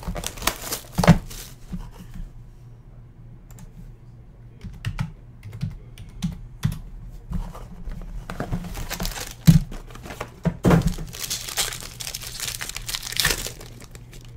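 Small cardboard trading-card boxes being handled and opened: scattered clicks and taps of cardboard. In the second half a foil pack wrapper rustles and crinkles.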